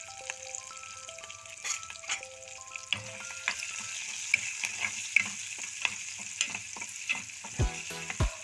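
Onion pieces frying in a little oil with turmeric, sizzling steadily, while a spatula stirs and scrapes against the pan.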